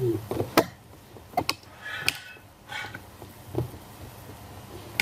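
Scattered sharp plastic clicks and knocks, about six spread out, with a couple of short scrapes, as an Acer Aspire One netbook's plastic casing is handled and pressed together.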